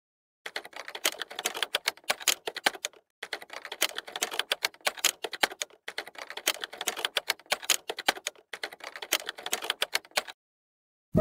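Typing sound effect: rapid key clicks in four runs of about two seconds each, separated by short pauses.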